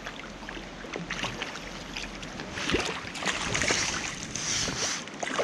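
Hooked trout thrashing and splashing at the water's surface as it is played in toward a landing net; the splashing grows louder about halfway through.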